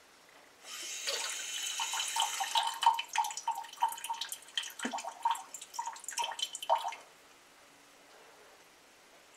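Kitchen faucet turned on and run into a mug, the stream splashing and plopping irregularly as the mug fills, then shut off about seven seconds in.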